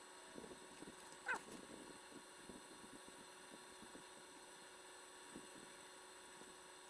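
Near silence: a faint steady electrical hum, with scattered faint ticks and one brief faint high squeak about a second in.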